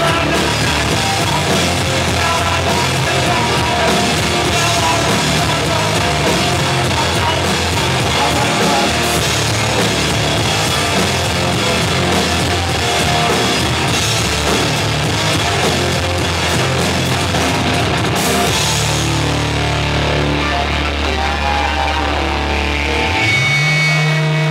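Live rock band with electric guitars, bass and drum kit playing loudly. About 18 seconds in the drums and cymbals drop away and long held guitar and bass chords ring on, moving to a new held chord near the end as the song closes.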